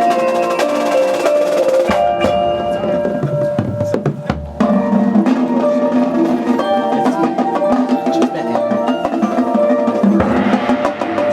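A high school marching band playing: sustained brass and wind chords over drumline and front-ensemble mallet percussion, with a deep low hit about four seconds in.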